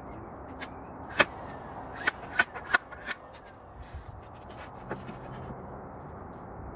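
A series of sharp knocks and clicks, a single one about a second in, then a quick cluster of three or four and another near the end, as wooden cabinet parts are handled and fitted together.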